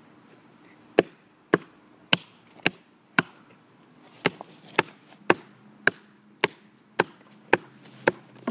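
A rock chipper struck over and over, sharp blows coming steadily about twice a second, starting about a second in.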